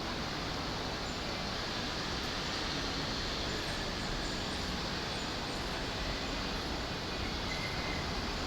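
Steady, even railway-platform background noise with no distinct events.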